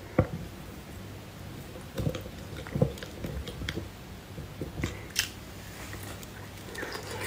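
Close-miked chewing and mouth sounds of someone eating soft beef bone marrow, with scattered short clicks and wet smacks over a faint steady low hum.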